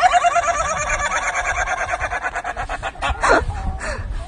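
Rooster crowing: the tail of one long crow that quavers rapidly and fades out about three seconds in, followed by a short call that falls in pitch.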